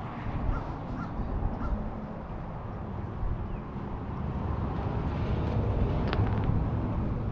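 Steady low outdoor rumble, with a few short bird calls near the start.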